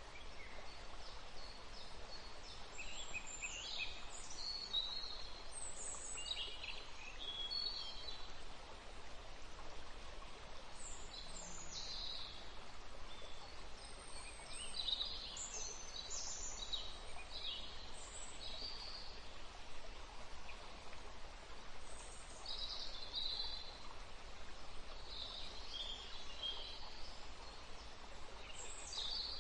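Small birds chirping in short, repeated calls scattered throughout, over a steady background hiss.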